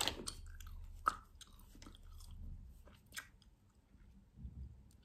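Gum chewing close to the microphone: wet mouth smacks and clicks, the sharpest at the start, about a second in and near three seconds, softer toward the end.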